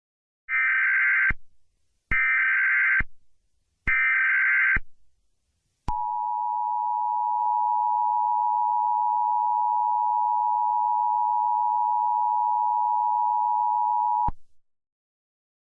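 Emergency Alert System tones: three short bursts of SAME digital header data, about a second apart, then the two-tone EAS attention signal held steady for about eight seconds before it cuts off.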